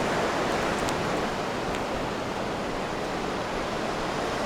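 Sea waves washing on the shore, a steady rush of surf, with a few faint clicks about a second in.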